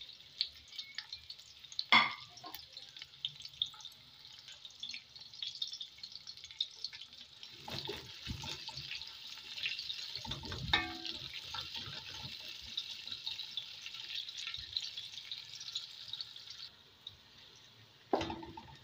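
Sliced onions sizzling and crackling in hot oil and ghee in a steel pot as they are stirred with a spoon. A sharp knock comes about two seconds in, and the spoon knocks against the pot around eight and eleven seconds. The sizzle thins near the end.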